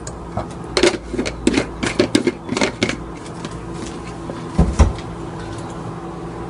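Kitchen handling sounds: a metal spoon and glass spice jars clicking and tapping in quick, irregular bursts as spice is measured into the pot, then one heavier low thump a little past the middle. A steady low hum runs underneath.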